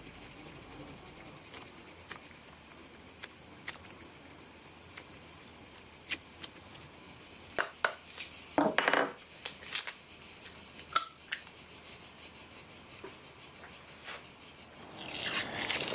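A plastic-faced mallet knocks several times on a wooden knife handle held in a steel bar clamp, a little under halfway in, among lighter clicks from the clamp being handled. A steady high-pitched hiss runs underneath.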